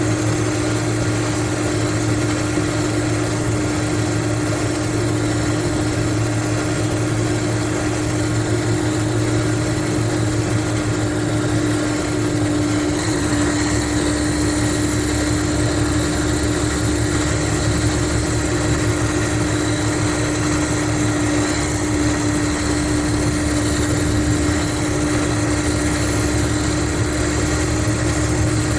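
Mercedes-Benz O500RSD coach's diesel engine running steadily, with a constant low drone and a steady hum held at one pitch.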